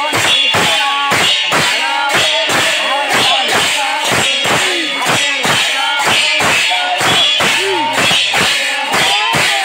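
Several pairs of large brass hand cymbals clashed together in a fast, even rhythm, about four clashes a second, each clash ringing on into the next.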